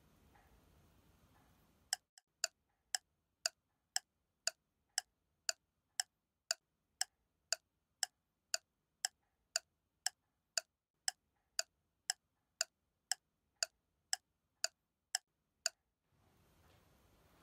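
Clock ticking, about two sharp ticks a second, starting about two seconds in and stopping about two seconds before the end. Faint room tone comes before and after.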